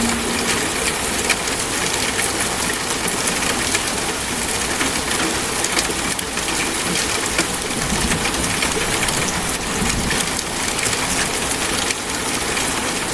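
Steady rain falling, an even wash of drops with no letup.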